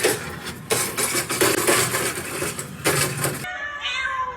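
Busy clattering and rattling of hard objects, many sharp knocks close together, cutting off abruptly about three and a half seconds in.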